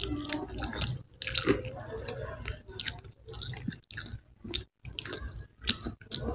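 Close-up chewing and biting of a seaweed-wrapped onigiri rice ball: irregular short wet clicks from the mouth, with brief pauses between bites.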